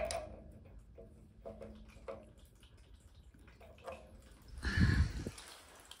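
Water dripping slowly from a radiator drain-off valve into a collecting bag, small scattered drips as the radiator drains slowly. A brief handling bump about five seconds in.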